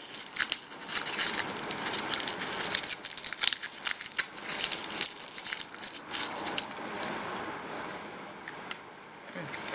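Dry papery husks of golden berries (cape gooseberries) crinkling, crackling and tearing as they are peeled back by hand, with many small clicks; near the end a berry is put into the mouth and eaten.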